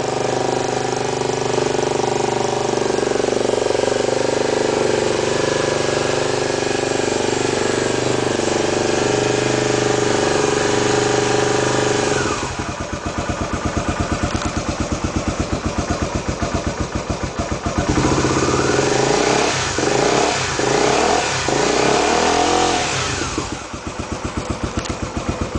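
Honda CBX 250 Twister's single-cylinder four-stroke engine running through a Roncar Coyote RS5 aftermarket exhaust, held at steady high revs for about twelve seconds, then dropping to a pulsing idle. About two-thirds of the way in it is blipped in several quick revs, then settles back to idle near the end.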